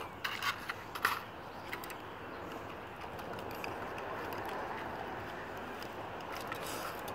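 Knives cutting and picking at plastic blister packaging: a few sharp clicks and rustles in the first second, then faint scraping and occasional ticks over a steady background hiss.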